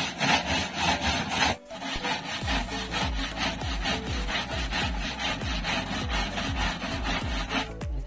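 Stiff bristle brush scrubbing a plastic microwave cover plate under running tap water, in quick, regular back-and-forth strokes. A brief break comes about one and a half seconds in, and from then on low repeating thuds run under the scrubbing.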